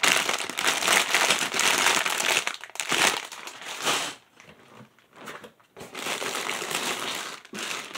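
Clear plastic bags of Lego pieces crinkling as they are handled, with a quieter spell about halfway through.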